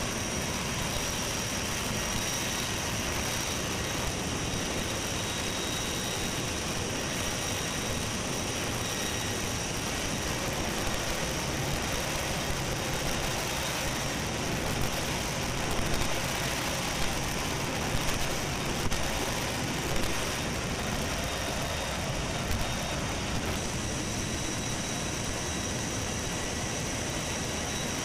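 Steady noise of a C-17 Globemaster's four turbofan engines and the slipstream rushing past the open paratroop door, heard inside the cargo hold, with a few brief knocks a little past the middle.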